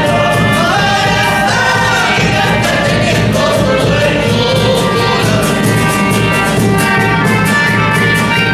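Andean folk band playing: men's voices singing together over a small accordion and two strummed guitars, with a large bombo bass drum beating a steady rhythm.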